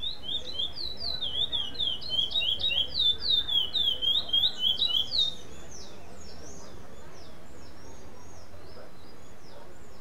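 Curió (chestnut-bellied seed-finch) singing its competition song in the no-repetition style: a fast run of slurred whistled notes, about four a second, that stops about five seconds in. Fainter, higher chirps follow.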